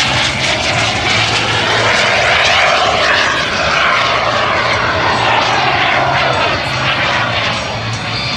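Small turbojet of a jet-powered sailplane rushing past in a flyby, swelling to its loudest about two to three seconds in and easing off near the end.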